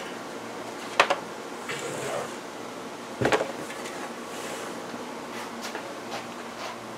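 Handling noise from a 15-inch subwoofer cone being moved and set down on the speaker's metal basket: a sharp knock about a second in and a duller knock a little after three seconds, with faint rustles and clicks between, over a steady low background.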